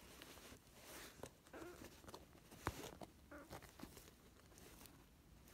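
Faint, intermittent rustling and crinkling of a thin sheet under a tortoiseshell kitten as it squirms and grabs at a playing hand, with a few small clicks, the sharpest nearly three seconds in.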